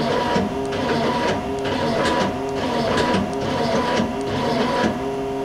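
Tool turret of a Miyano BND-34T5 CNC turning center indexing repeatedly from station to station: a quick run of clicks and clunks, about two to three a second, each with a short whir of the indexing drive, over the machine's steady hum.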